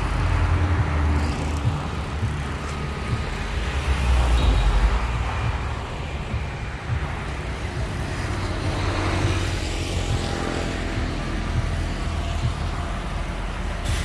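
Heavy diesel machinery running steadily, a deep engine sound that grows louder for about a second around four seconds in.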